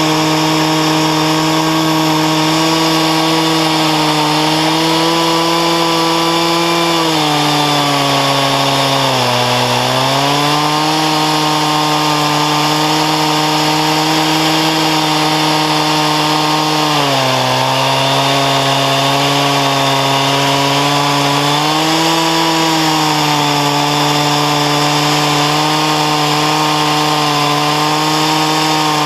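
Stihl 036 two-stroke chainsaw running at high revs under load, ripping a sugar maple log lengthwise on an Alaska chainsaw mill. The engine pitch sags and recovers about four times as it bogs in the cut, with a chain the owner says needs sharpening.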